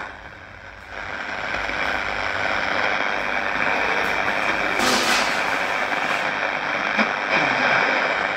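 Philips 282 two-band radio on medium wave, giving steady static hiss while being tuned. Rising and falling whistles come in near the end. Run on mains power, the set picks up heavy disturbance on medium wave.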